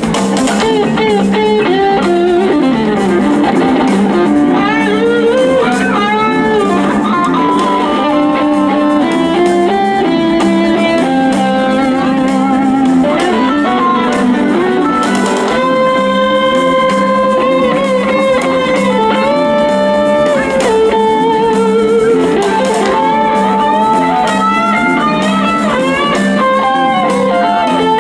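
Live southern rock band in an instrumental passage: electric lead guitar soloing with long held notes, pitch bends and vibrato over bass guitar and drums.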